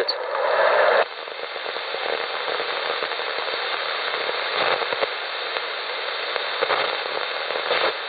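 Shortwave receiver in AM mode being tuned across the 80-metre band and played through a small external speaker: steady static hiss. A louder signal in the first second cuts off abruptly as the dial moves on, and a few faint snatches of stations flick past later.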